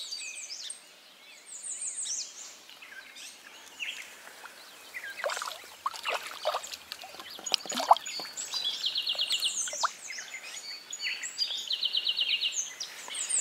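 Songbirds singing and chirping, with a rapid trill heard twice in the second half. About halfway through come a few short splashes in the water, the loudest near the two-thirds mark.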